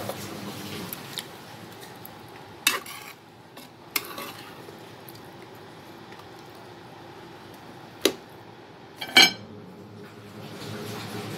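Metal ladle clinking against the side and rim of a metal cooking pot while stirring a simmering soup: a few sharp, separate knocks, the loudest near the end, over a steady low background hiss.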